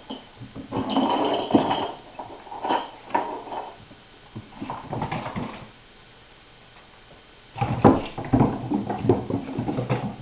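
Kittens scampering and skittering across a hardwood floor, their paws and claws clicking and scuffling, in several irregular bursts. The longest and loudest burst starts about three-quarters of the way through.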